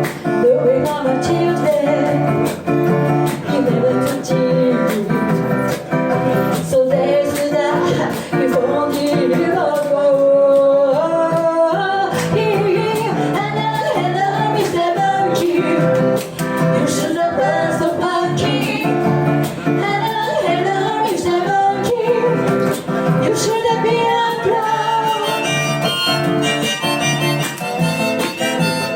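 A song sung to guitar accompaniment, with a harmonica coming in near the end.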